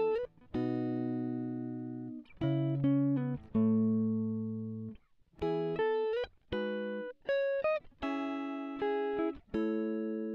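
Background music: a clean guitar picking slow chords and single notes, each ringing out and fading before the next.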